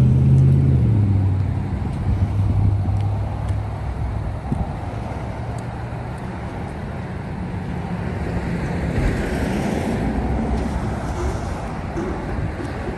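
Ford F-350 pickup's engine working under load as it tows a semi trailer, a steady low engine note loudest at the start and then easing off, with a spell of hiss about nine to ten seconds in.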